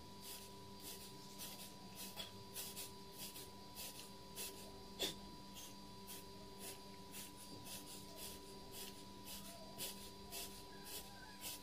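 A man's quick, faint breaths during push-ups, sped up: short puffs of exhalation at about two to three a second, with one louder click about five seconds in. A thin steady tone runs underneath.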